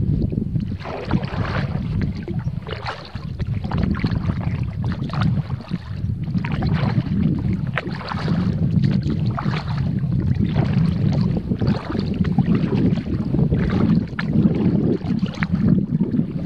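Kayak paddle dipping and splashing in river water in a steady rhythm, a stroke about every second or so, over a constant low rumble of wind on the microphone.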